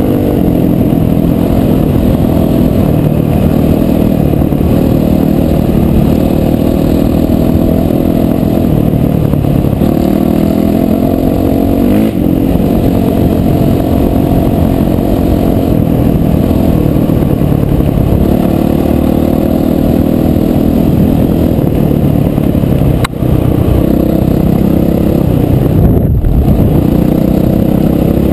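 Dirt bike engine running continuously under throttle as the bike rides, its pitch drifting up and down with a brief drop in level near the end.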